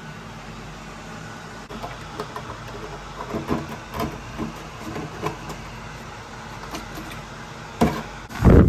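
Portable air conditioner running with a steady hum, overlaid from about two seconds in by irregular clicks and knocks of handling, and a loud thump near the end.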